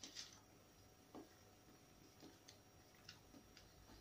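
Near silence with faint, irregular soft clicks of a person chewing a mouthful of sausage.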